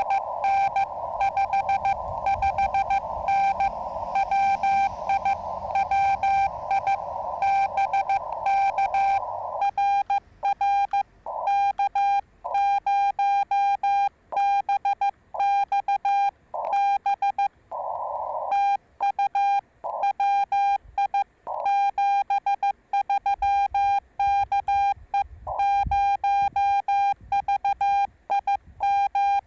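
Morse code tones from a Yaesu FT-891 transceiver, one steady pitch keyed in fast dots and dashes. For about the first nine seconds the tones sound over band hiss in the receiver's narrow CW filter: a station being received. From about ten seconds in they are clean and separated by dead silence, the transceiver's sidetone as the operator sends with the receiver muted.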